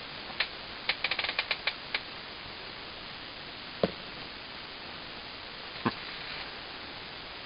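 A quick run of sharp clicks in the first two seconds, then two single knocks a couple of seconds apart.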